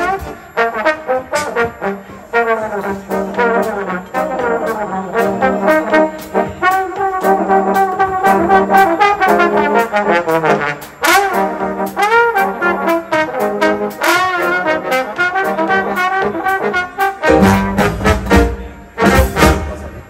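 A section of four trombones playing an instrumental passage in close brass harmony. Near the end a burst of broad noise comes in over the playing.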